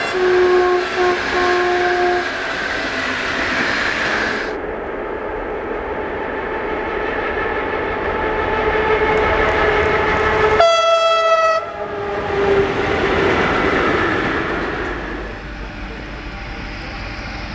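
Electric locomotive-hauled passenger train passing at speed: rumble and clatter of the coaches on the rails. A horn sounds in short blasts over the first two seconds, and another horn blast lasts about a second about ten seconds in. The rumble fades as the train draws away.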